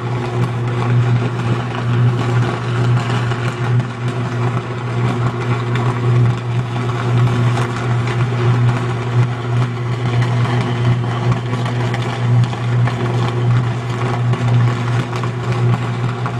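Sustained high-voltage electrical arc at a short-circuited substation transformer: a loud, steady deep buzz with crackling over it.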